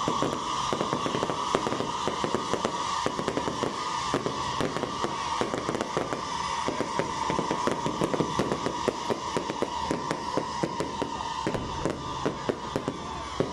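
Aerial fireworks going off continuously in a dense, irregular crackle of sharp pops and bangs. A steady high tone runs underneath throughout.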